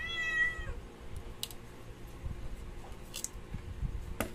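A brief high squeak that dips in pitch as it ends, then a few light clicks and taps of a phone's parts handled on a hard work table. The last, sharpest clicks come near the end as the opened phone's mid-frame is set down.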